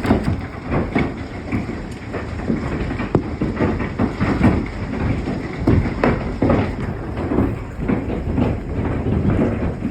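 Large hailstones, tennis-ball to baseball size, pounding down in a dense, irregular barrage of hard impacts over a steady rushing storm noise.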